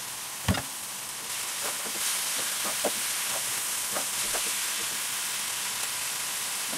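Raw ground meat and diced vegetables sizzling in a hot frying pan, the hiss growing louder a second or two in. A sharp knock about half a second in, then lighter taps as a spatula stirs the meat in the pan.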